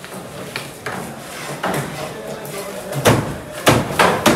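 Large knife chopping through a stingray onto a cutting board: a few light knocks, then four heavy chops in quick succession in the last second and a half.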